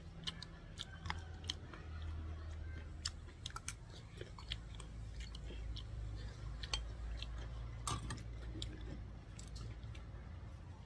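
Close-up chewing and crunching of slices of young green mango, with many short crisp crunches and clicks through the mouthfuls, over a steady low hum.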